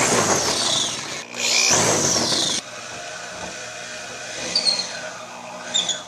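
Corded power drill working on a galvanized steel pipe flange fixed to a wood block: two loud bursts, each with a whine that falls in pitch, then the drill runs more quietly for about three more seconds.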